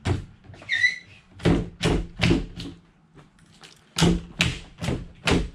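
Sharp knocks and thuds of a hand tool struck and levered against a wooden shipping crate to pry its lid open: one near the start, three in quick succession, then four more, with a short squeak about a second in.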